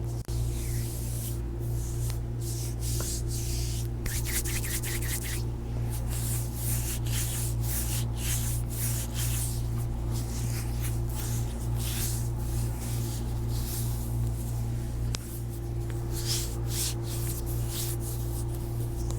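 Hands rubbing and stroking the skin of a bare foot during a massage: a run of irregular soft swishes, roughly one or two a second, heard close up. A steady low hum runs underneath.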